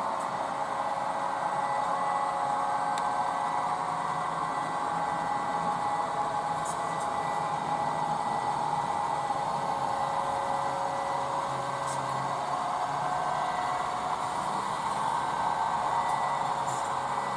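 HO scale model train running along the track, a steady whirring of its motor and wheels with a few faint ticks.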